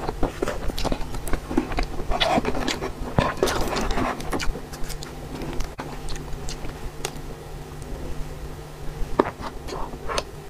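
Plastic wrapping strip being peeled off a slice of sponge cake: crinkling and scraping plastic with scattered sharp clicks, busiest in the first half and sparser after.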